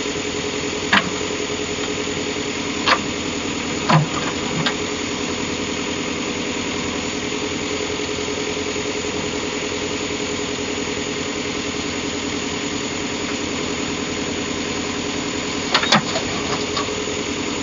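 Heavy diesel engine running steadily at a constant pitch, with a few sharp knocks about a second in, several more around three to five seconds in, and a pair near the end.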